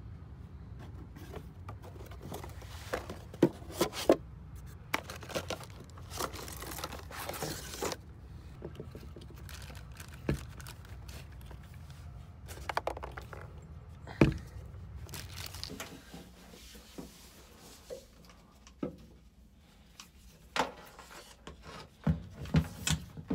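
Handling noises of unpacking and fitting a new plastic washdown pump: packaging crinkling and tearing, with scattered knocks and scrapes of the pump and its fittings. A low steady rumble underneath stops about two-thirds of the way through.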